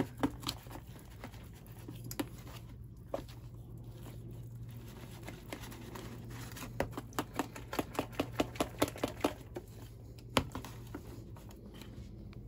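Wire whisk beating cake batter by hand in a bowl: soft clicks and scrapes of the whisk against the bowl. The clicks quicken to a steady run of about four a second from about six to nine and a half seconds in.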